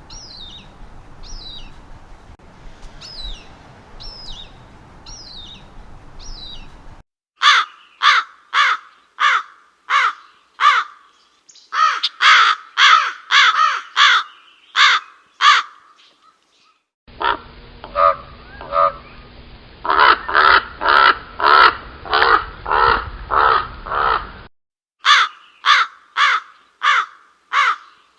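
A bird's high, thin, falling chirps over background noise, then, after a cut, a different bird giving long series of loud, harsh, cawing calls at about two a second.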